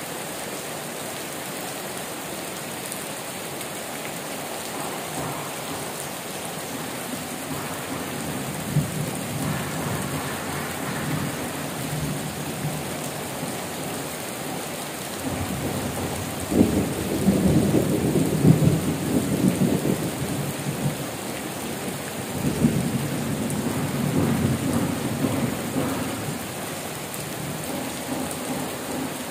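Heavy rain falling steadily, with thunder rumbling. A long roll of thunder builds through the first half and is loudest a little past halfway, then fades in further rumbles.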